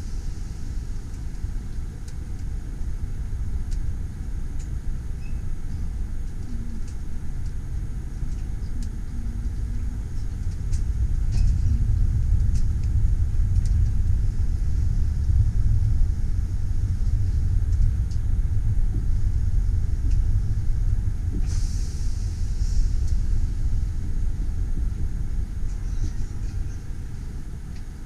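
Low rumble of a passenger train carriage rolling slowly, heard from inside the carriage, with faint clicks and knocks. The rumble grows louder about a third of the way in, and a short hiss comes about three-quarters through.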